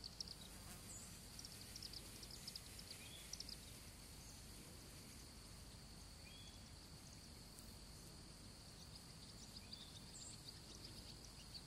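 Faint outdoor field ambience: a steady high insect drone with scattered short bird chirps, most of them in the first few seconds.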